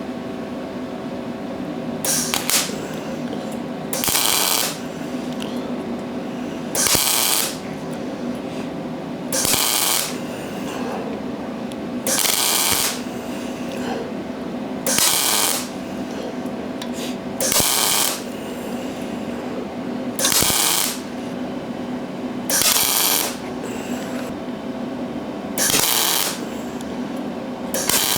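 MIG welder laying about ten short bursts of weld, each under a second long and roughly two and a half seconds apart, building up filler on a quarter-inch steel plate joint. A steady hum runs between the bursts.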